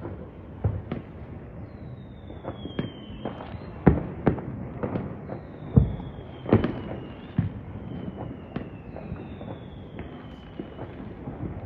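Fireworks and firecrackers going off across a town: scattered bangs and pops at varied distances over a steady rumble of farther bursts. The loudest bangs come about four and six seconds in.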